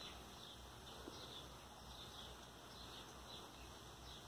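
Near silence: faint outdoor background with soft, high chirps repeating about once a second.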